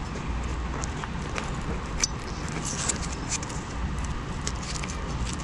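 Hands fastening a frame bag's velcro strap around a bike frame: scattered short scratching and crackling sounds over a steady low rumble.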